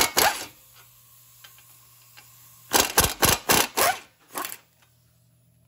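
Pneumatic air hammer rattling in short blasts against a steering knuckle to break the lower ball joint loose: two blasts at the start, then a quick run of about five about three seconds in, and one more just after.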